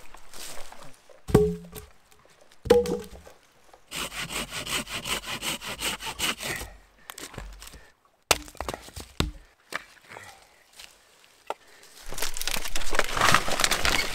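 Firewood being worked by hand: two loud wooden knocks, then a couple of seconds of quick, regular sawing strokes through wood. A few sharp chopping strikes follow, and near the end there is a crackling rustle of dry birch bark being handled for kindling.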